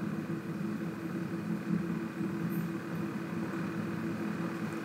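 Steady low hum of room background noise, unchanging, with no speech over it.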